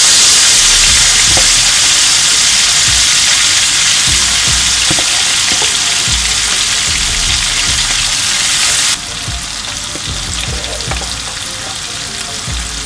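Shrimps frying in hot coconut oil in a wok: a loud, steady sizzle with a few light knocks, dropping abruptly in level about nine seconds in.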